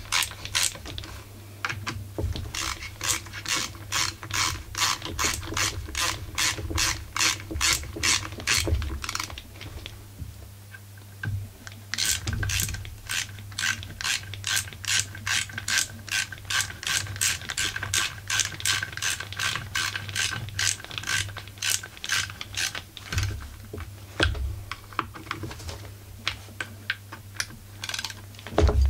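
Ratcheting screwdriver clicking in an even rhythm, about two clicks a second, as screws are driven into a chainsaw's recoil starter cover. There is a pause of a couple of seconds about ten seconds in.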